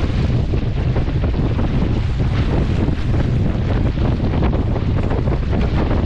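Strong wind buffeting the deck-mounted camera's microphone as a Laser (ILCA) dinghy sails upwind in about 18 knots, with water rushing and splashing along the hull. The sound is a loud, steady rumble with many short splashes through it.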